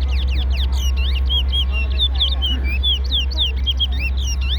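Towa-towa (chestnut-bellied seed-finch) song: quick runs of short chirping and warbling notes that follow one another without pause, over a steady low rumble.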